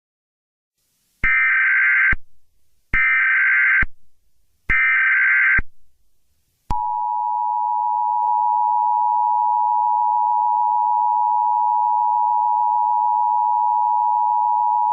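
Emergency Alert System tones: three short bursts of SAME digital header data, each about a second long, then the steady two-tone EAS attention signal held for about eight seconds, announcing a Blue Alert.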